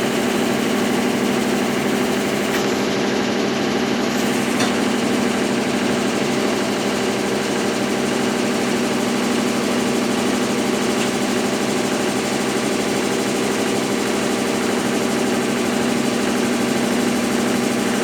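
Consul Facilite 10 kg washing machine running its wash stage: a steady motor hum with a constant whirring drone as it agitates a load of bed and bath linens.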